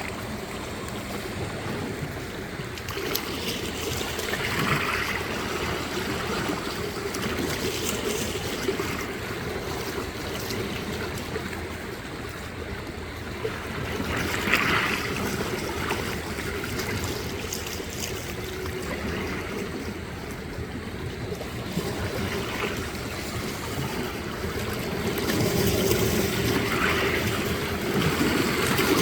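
Small sea waves washing and lapping against the shore in a steady wash of water noise, with a few louder wave splashes, and the surf a little louder near the end.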